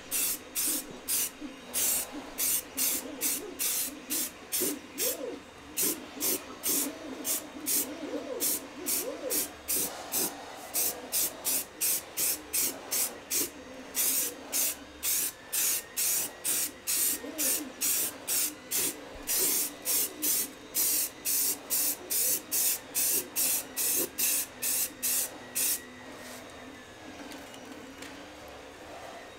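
Aerosol can of filler primer spraying in short hissing bursts, about two a second, as a primer coat goes onto a 3D-printed helmet. The bursts stop a few seconds before the end.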